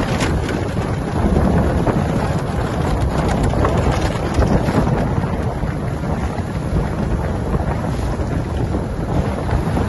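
Wind buffeting the microphone over the rush of water along a heeled sailing yacht's hull under way, a steady heavy noise with a few brief splashes of spray at the bow.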